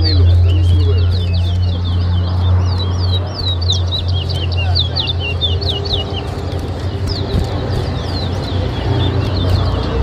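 Caged towa-towa seed finch singing a quick run of short, high whistled notes that slide up and down, densest in the middle with a few more near the end, over a steady low hum and faint background voices.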